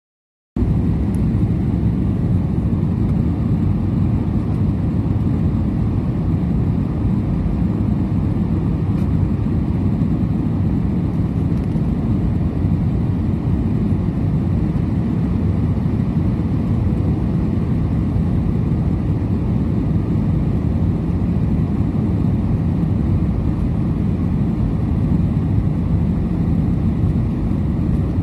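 Steady rumble of jet airliner cabin noise, engines and airflow heard from a window seat during the descent. It cuts in abruptly about half a second in and then holds even.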